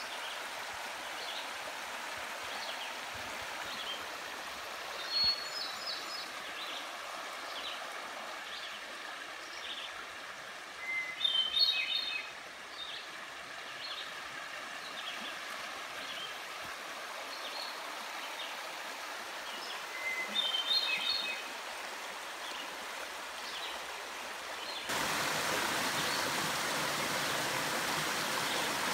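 Shallow forest stream rushing over rocks, a steady hiss of running water, with small birds chirping now and then above it. About 25 s in the water sound steps up louder and fuller: a small cascade splashing down between mossy boulders.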